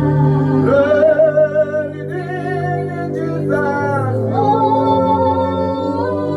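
Worship music: a single voice singing a slow, wavering melody over long held chords.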